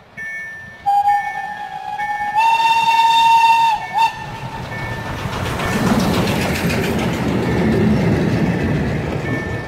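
Steam locomotive's whistle: one long blast of about three seconds that steps up slightly in pitch partway, then a short toot. The locomotive and its coaches then pass close by, with loud exhaust and wheel noise.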